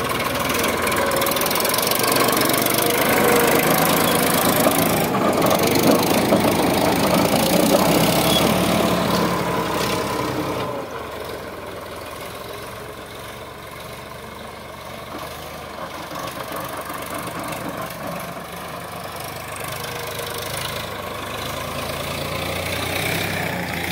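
Sonalika DI 745 tractor's three-cylinder diesel engine running steadily under load as it pulls a cultivator through soil. Louder for the first ten seconds or so, then it drops and slowly grows again toward the end.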